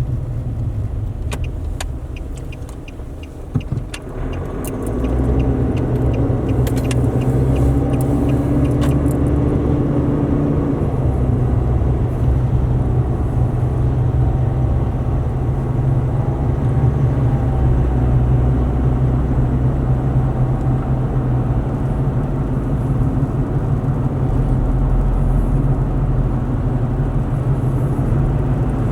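A vehicle being driven offroad: quieter for the first few seconds with a few sharp clicks, then the engine picks up and it runs steadily along the track with continuous road noise.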